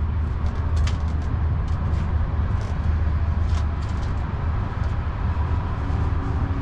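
Steady low mechanical hum, with light clicks and crinkles of plastic takeout containers and utensils being handled.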